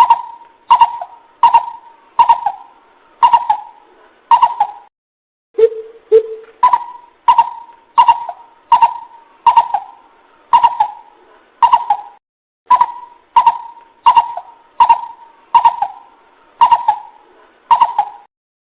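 Coucal calling: a long run of deep, hollow hooting notes, about one and a half a second. The notes come in series, each opening with two lower notes, with a short pause between series. This is the recorded call used as a lure to draw coucals in.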